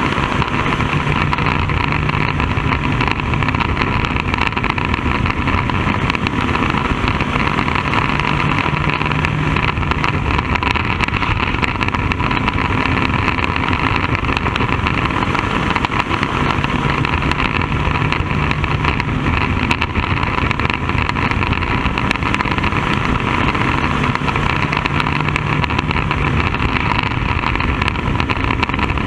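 Bandolero race car's Briggs & Stratton engine running steadily, heard from inside the cockpit, with a lower hum that comes and goes every several seconds.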